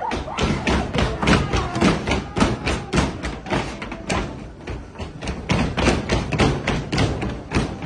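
Dancers' feet stamping and thumping on a stage floor in a quick, uneven rhythm, about two to three thumps a second, with faint music and voices underneath.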